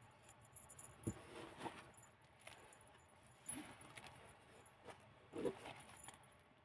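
Pages of a handmade junk-journal storybook, made from old book pages, being handled and turned: faint paper rustles and a few soft knocks. The loudest knocks come about a second in and about five and a half seconds in.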